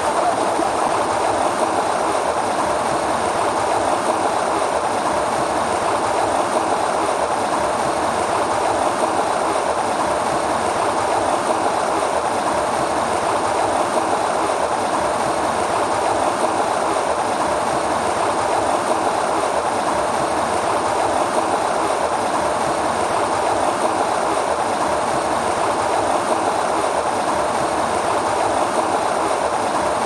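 Mountain stream water rushing and splashing white over a rock close to the microphone, a steady, unbroken rush.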